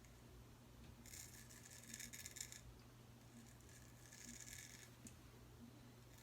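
Faint strokes of a Boker Tree Brand straight razor scraping through lathered stubble: two scratchy strokes, each about a second long, over a low steady hum.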